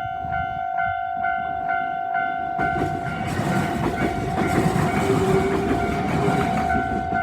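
A Japanese level-crossing warning bell rings in a steady repeating ding, about twice a second. From about two and a half seconds in, a local train runs over the crossing: wheel and running noise swells over the bell, peaks midway and dies away near the end.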